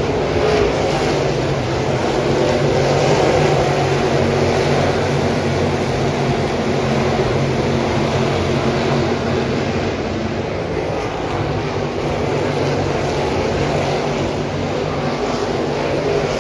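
Several Crate Late Model race cars' V8 engines running on the dirt oval, a loud, steady sound of many engines together with a slight dip and recovery in the second half.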